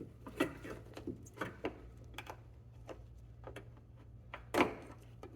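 Scattered light clicks and taps of a plastic trim tool prying at a stuck rear door-handle cap on a 2015 Subaru WRX STI, with one louder click near the end.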